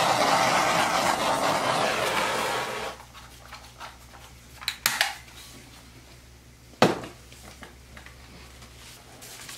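Handheld torch flame hissing steadily over wet acrylic pour paint to pop the air bubbles, cutting off about three seconds in. Afterwards come a few light clicks and one sharp tap.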